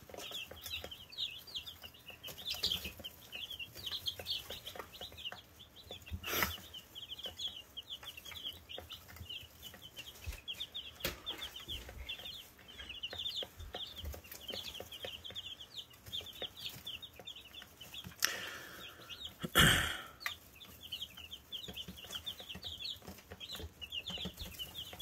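A brood of five-day-old Buff Orpington chicks peeping continuously, many short high chirps overlapping. Two knocks break in, one about six seconds in and a louder one near twenty seconds.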